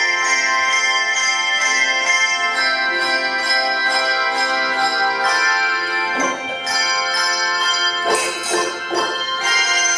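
Handbell choir playing: many tuned handbells ringing together in chords, their notes sustaining and overlapping.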